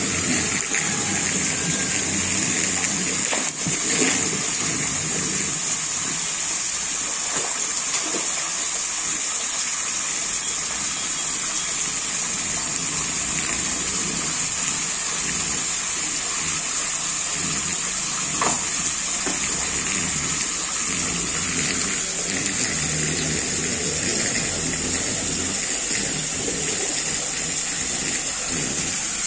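Steady rushing of water in a tiled fish tank, with a few brief sharp sounds along the way.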